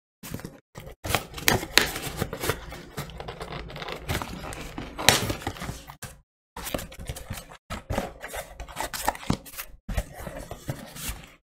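Cardboard shipping box being opened by hand: a pen point scraping along and slicing through packing tape, then cardboard flaps pulled apart and handled, with irregular scraping, tearing and crackling.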